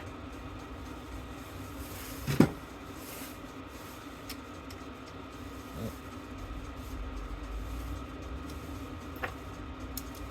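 Metal parts of a Vanguard fire bell being handled during disassembly: one sharp clank about two seconds in, then a few light clicks and taps, over a steady hum.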